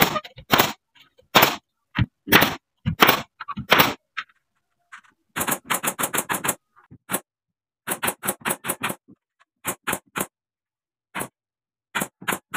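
Nail gun firing nails into wooden ceiling planks overhead. Single shots come every half second to a second, then quick runs of five or six shots at about five a second.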